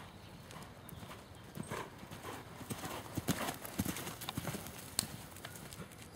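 Hoofbeats of a ridden horse on a sand arena surface: a run of soft, irregular thuds with a few sharper knocks.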